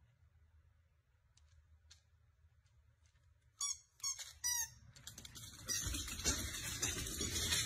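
A husky-type dog gives three short, squeaky yelps about halfway through, after near silence with a few faint ticks. Then a busy clatter follows as it runs off across the wooden floor.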